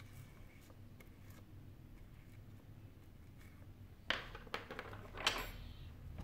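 Faint light scratching of a small brush on a phone's metal mid-frame, then, about four seconds in, a few sharp clicks and clatters of small hand tools being put down and picked up on the work mat.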